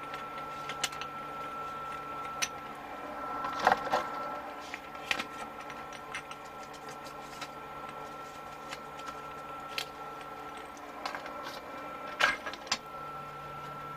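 Scattered small clicks and knocks of hands working shower hose fittings, with the loudest about four seconds in and again near the end. Under them runs a steady faint hum.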